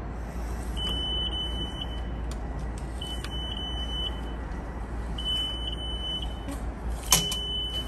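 An electronic alarm beeping: four high beeps of about a second each, a little over two seconds apart, over a steady low rumble, with a sharp clack about seven seconds in.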